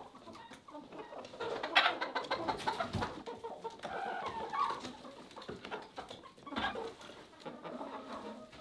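Chickens clucking and murmuring as they settle on their roost, with a few sharp knocks among the calls.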